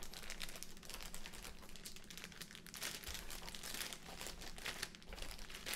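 Clear plastic zip bags holding SATA cables crinkling as they are handled and lifted out of the box, a dense run of small crackles.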